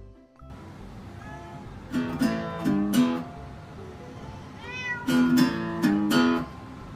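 Acoustic guitar strummed in two short bursts of chords, with a cat meowing between the strums.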